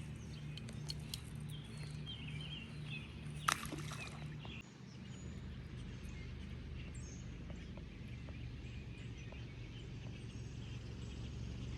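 Early-morning outdoor ambience by the water: a steady low hum under a quiet background, with faint short bird chirps and a single sharp click or knock about three and a half seconds in.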